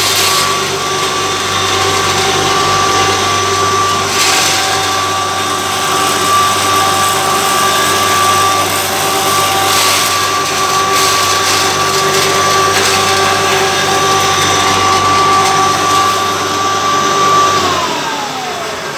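A 3 HP pulverizer grinding cotton seed for cattle feed, its motor and beater running with a steady high whine over a low hum. Near the end the whine falls in pitch as the machine winds down.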